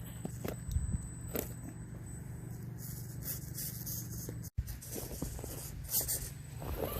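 Small electric RC crawler's motor and geartrain whirring steadily, with scattered clicks and scrapes as it crawls over playground surfaces, broken by a brief cut in the sound partway through.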